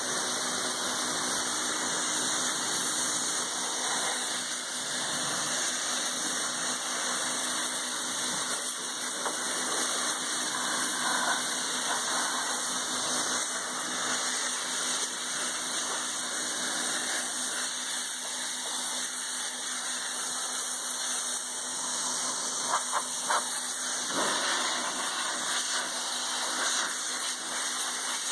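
Pressure washer running steadily, its pump humming under the hiss of the water jet spraying down a greasy tractor, with a few brief louder spatters late on.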